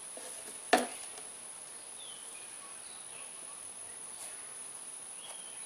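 Quiet background ambience: a steady thin high-pitched tone and a few short faint chirps, with one sharp click a little under a second in.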